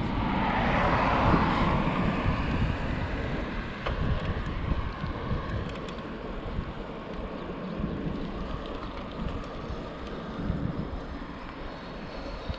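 Wind buffeting a handlebar camera's microphone and tyre noise as a bicycle rolls along a paved road, louder for the first couple of seconds.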